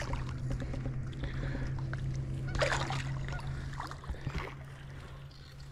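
A hooked common carp splashing in the shallows at a landing net, with a louder splash about two and a half seconds in, over a steady low hum.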